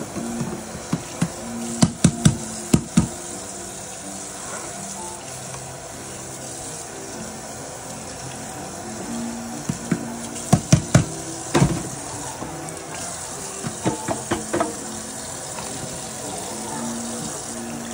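Dishes being washed in a kitchen sink, with tap water running steadily. Dishes and utensils clatter in clusters of sharp knocks about two seconds in, again around ten to twelve seconds in, and near fourteen seconds.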